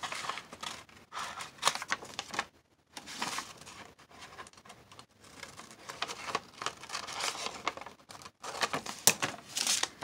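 Scissors cutting through a folded sheet of thin printed paper, with the paper rustling and crinkling as it is handled. The sounds come in irregular bursts, with brief pauses about three seconds in and again about eight seconds in.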